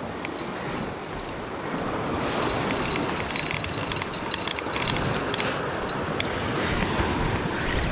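Shimano Stella 8000 spinning reel clicking rapidly for a few seconds, over wind and surf.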